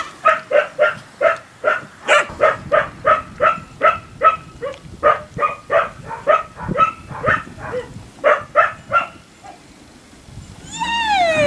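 Portuguese water dog barking in a fast, even string, about three barks a second, which stops about nine seconds in. Near the end a long cry falls in pitch.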